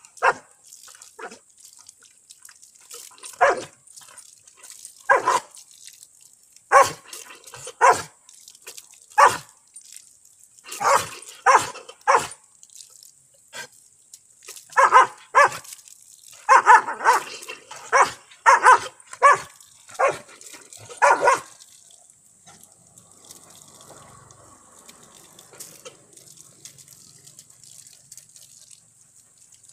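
Labrador retriever barking at play, short barks coming singly and in quick runs, stopping about three quarters of the way through. After that, water running from a tap is faintly heard.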